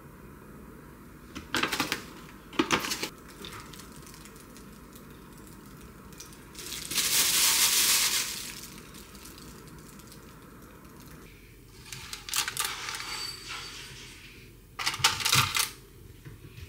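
Kitchen handling sounds: a metal spoon clinks twice against the squash halves holding raw eggs, a plastic bag rustles for about a second as cheese is shaken out, then squash halves knock and clatter into the basket of an air fryer.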